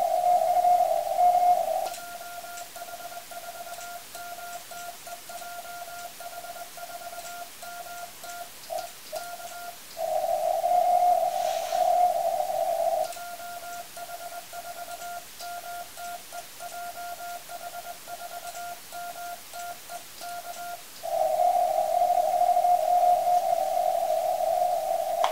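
Morse code sent by hand on an amateur radio transceiver: the CW sidetone beeps on and off in a fast keyed rhythm at one steady pitch, in two long runs of sending. Between them come louder stretches of steady hiss, band noise from the 10-metre receiver heard through its narrow CW filter, at the start, a little past the middle and near the end.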